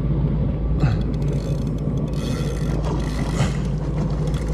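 Jet ski engine idling steadily, with a low even hum under wind and water noise, and a few short bursts of hiss about one, two and three and a half seconds in.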